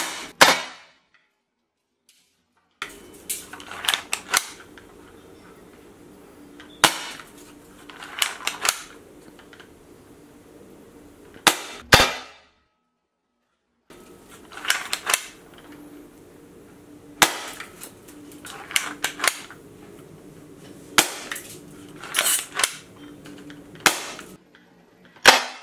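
ER2 CO2 pump-action paintball pistol firing repeatedly, each shot a sharp pop, with smaller clacks between shots as the pump is pulled back and pushed forward to chamber the next ball.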